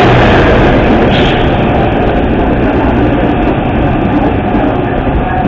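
Metra commuter train rolling into the station alongside the platform: a loud, steady rumble of wheels and running gear that gradually gets quieter as it slows.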